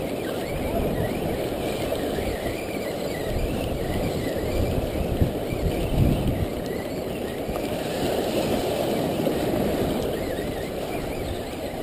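Steady wind and surf noise: waves washing against jetty rocks with wind rumbling on the microphone, a couple of louder bumps around five to six seconds in.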